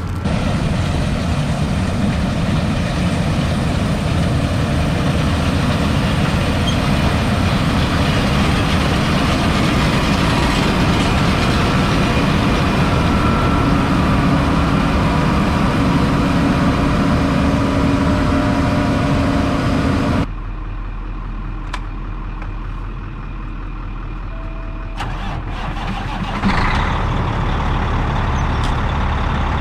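Combine harvester running while it harvests wheat: a loud, steady machinery drone. About two-thirds of the way through it drops suddenly to a quieter, steady low engine hum, which gets louder again near the end.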